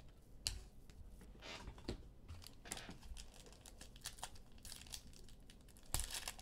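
Faint crinkling and tearing of a trading card pack's foil wrapper, with scattered light clicks of cards being handled.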